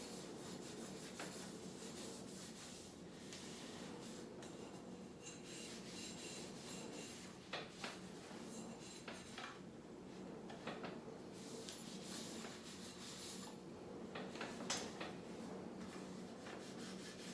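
A cloth wiping and rubbing along the metal barrel shroud, air tube and scope of a PCP air rifle: faint, scratchy rubbing, with a few light knocks from handling the gun.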